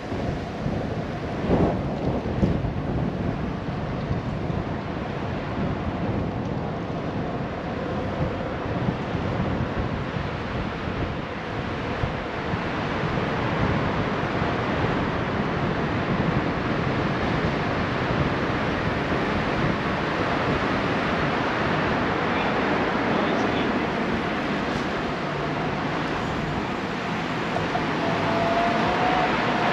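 Wind buffeting the microphone of a camera riding on a moving bicycle: a steady rushing noise with a low rumble, with a few sharp jolts in the first few seconds.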